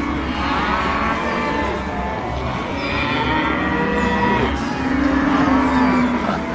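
Cartoon stomach-growl sound effect: a series of long, low drawn-out growls, with one held tone near the start and another about five seconds in.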